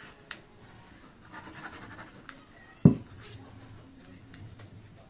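Paper and craft tools being handled on a work table: light scratching and rustling with a few sharp clicks, and one dull thump on the table a little under three seconds in.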